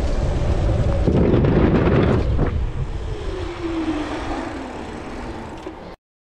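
Wind buffeting the microphone with rumble from a bicycle rolling over a concrete path, fading toward the end and cutting off suddenly near the end.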